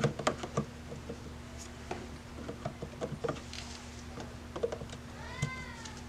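Scattered plastic clicks and small knocks as a battery pack is pushed into the bottom of a Ring Video Doorbell 3, the sharpest click right at the start. About five seconds in comes a short high squeal that rises and falls in pitch.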